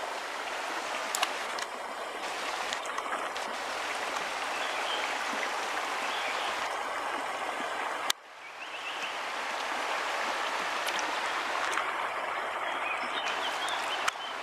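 Steady rush of shallow river water flowing over stones, which drops away suddenly about eight seconds in and swells back up.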